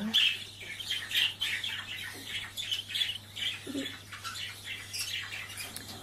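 Two-week-old budgerigar chick calling: a quick string of short, high-pitched squawking cheeps, several a second, easing off near the end.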